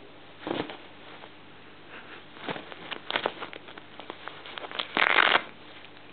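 Scratching and rustling of the thin nylon fabric of a pet tent under fingers, in short scratchy bursts and clicks, with a louder rustle of the fabric about five seconds in.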